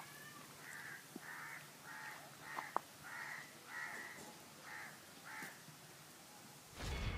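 A crow cawing, a run of about eight harsh caws roughly two-thirds of a second apart, with a couple of small clicks among them. Just at the end a loud low rushing sound comes in.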